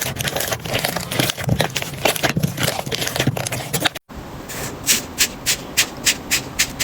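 Slime being squeezed and pressed by hand, giving dense crackling and popping. After an abrupt cut about four seconds in, sharper single pops come about twice a second.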